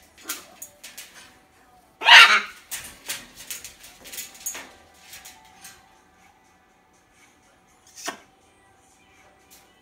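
Rubygold macaw giving one loud, harsh squawk about two seconds in, then a few short clicks and small sounds, and a shorter call that falls in pitch near the end, over a faint steady hum.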